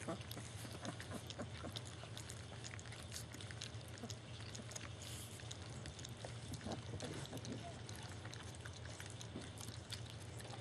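German Shepherd puppies lapping and smacking at a bowl of soft, wet dog food, their first solid food: a continuous run of small wet clicks and slurps over a steady low hum.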